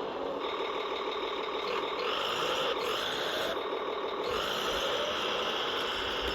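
Radio-controlled tracked snow vehicle running, a steady mechanical whir of its drive motor, gearing and tracks that shifts in pitch every second or so.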